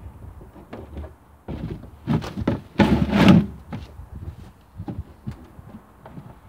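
Hollow knocks and thunks from a plastic water butt and its stand being handled. The loudest sound is a brief scraping rush about three seconds in, followed by a few lighter knocks.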